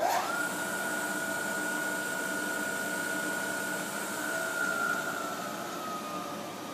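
Spindle of a Fryer MB-12 CNC bed mill starting in low gear. The whine of its motor and gears comes up to speed within a moment and holds steady, then slowly drops in pitch about two-thirds of the way through as the variable speed is turned down.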